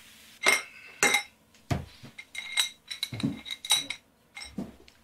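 About a dozen sharp metal-on-metal clinks and taps, each with a short ringing tone, as metal parts are handled on a boat's diesel engine.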